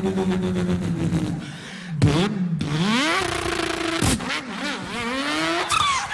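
A man imitating car engines with his voice: a steady engine-like drone, then revs rising in pitch and dropping back as if through gear changes. A sharp pop about four seconds in, like a backfire.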